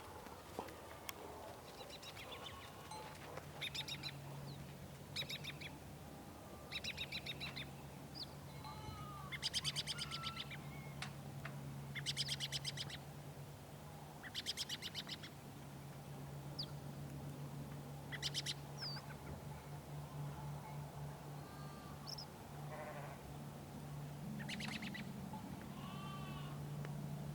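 Farm ambience: livestock bleating in short, quavering calls every second or two, with scattered bird chirps over a low steady hum.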